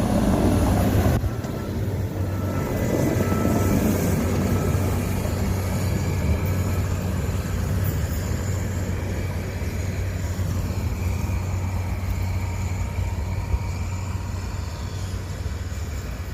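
Diesel engines of two excavators travelling along railroad tracks: a steady low drone that gradually grows fainter.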